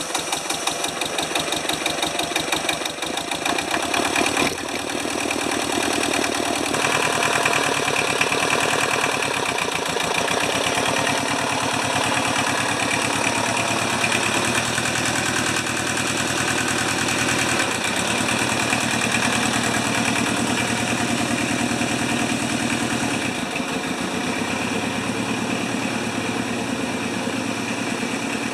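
Toyosha diesel engine of a Hinomoto compact tractor running just after a cold start, with a fast, rough clatter. About 7 s in it speeds up and gets louder, then drops back to a lower, steadier run near the end.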